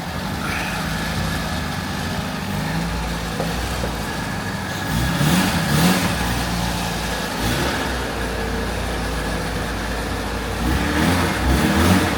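A car engine running steadily, with two louder spells of rising and falling pitch, about five seconds in and near the end.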